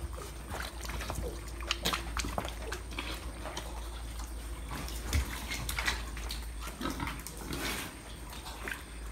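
Pigs feeding at a trough, their eating sounds broken by many short clicks and knocks.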